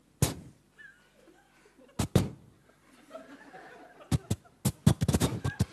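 A singer imitating fireworks with his mouth into a microphone, a-cappella style: one sharp bang, another about two seconds later, then from about four seconds in a quickening string of pops and bangs like a barrage going off.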